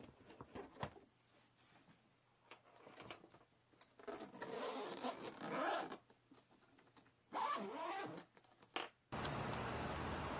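Scattered clicks, then bursts of rustling and scraping like handling or a zipper. About nine seconds in, this switches abruptly to a steady low rumble with hiss.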